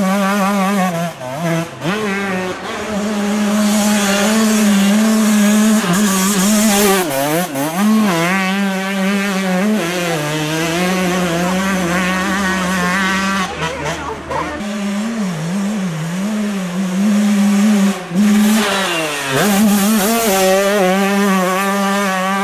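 Two-stroke 125 cc motocross bike engines revving hard on a sandy track. The pitch swoops up and down over and over as the throttle is worked through the whoops, with short drops when it is shut off.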